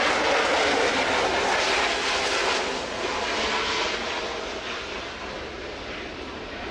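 Twin RB199 turbofan jet engines of a Panavia Tornado GR4 on its landing approach, a loud jet rush that fades steadily as the aircraft moves away.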